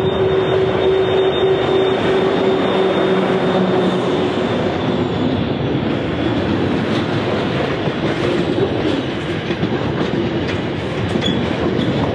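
SCT-class diesel locomotives pass close by, their engines giving a steady hum for the first few seconds. A long freight train of box vans then rolls past with a steady rumble of wheels on rail and scattered clicks.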